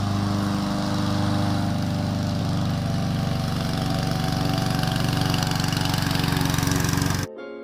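Honda HRJ216 petrol walk-behind lawn mower, its single-cylinder four-stroke engine running steadily at an even speed. The engine sound cuts off suddenly near the end.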